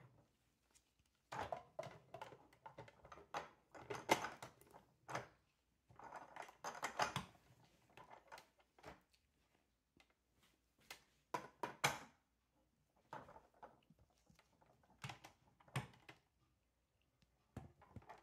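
Hard plastic toy plane parts being handled and fitted together: irregular clicks, knocks and short scraping rubs of plastic on plastic, in clusters with brief pauses between them.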